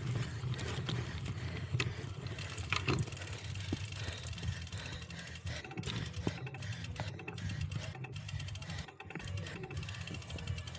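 Cyclocross bike ridden hard over rough ground: a steady low rumble with many sharp clicks and rattles from the chain and drivetrain.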